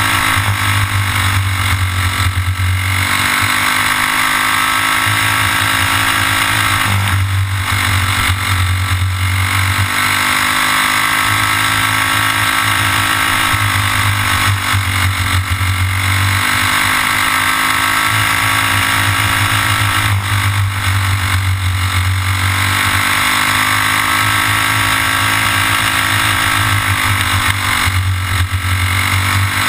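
Racing kart engine at full race pace, heard from on board the kart. Its pitch climbs steadily and then drops back, again and again, as the kart goes from straight to corner.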